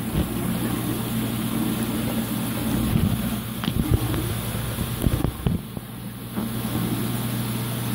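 Steady electrical hum of aquarium equipment, such as a pump or powerhead, under an uneven low rumble, with a few soft knocks.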